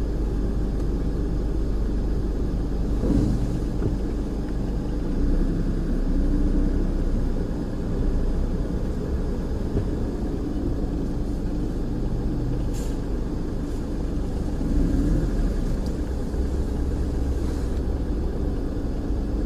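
A car running slowly with a steady low rumble, and a few faint clicks over it.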